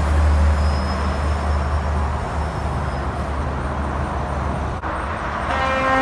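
Diesel box truck passing close: a low engine rumble with tyre and road noise that eases off after about two seconds. Near the end, a truck horn starts a steady blast.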